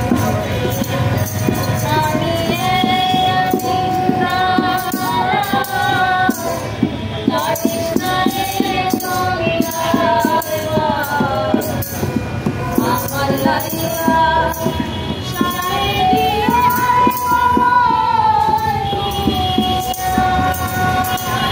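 Live acoustic Bangla folk music: voices singing a melody with a bowed violin, a bamboo flute, a hand drum keeping a steady rhythm and a strummed small string instrument.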